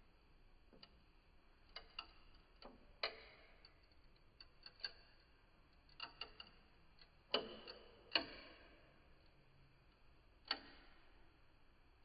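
Glue joints and basswood members of a model truss bridge cracking under load as the structure bends: scattered sharp, irregular ticks and cracks. The loudest two come a little past seven and eight seconds in, and another about ten and a half seconds in.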